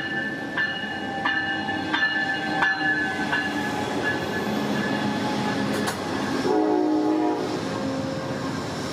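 Amtrak passenger train rolling into the station and passing close by: a steady rumble of wheels on rail with repeated clicks, and steady high-pitched squealing tones over it. A short, lower chord of tones sounds about six and a half seconds in.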